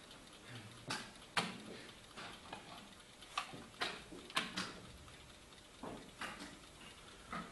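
Blitz chess play: chess pieces knocked down onto a board and the buttons of an analog chess clock pressed, giving irregular sharp clicks and knocks, often in quick pairs.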